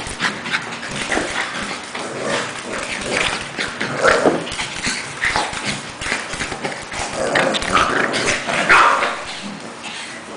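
A Pekingese and an English bulldog puppy play-fighting: short dog vocal sounds, loudest about four and nine seconds in, over constant scuffling and clicking of paws and claws.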